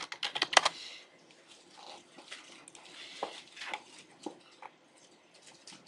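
Typing on a computer keyboard: a quick run of keystrokes in the first second, then only faint scattered clicks and small noises.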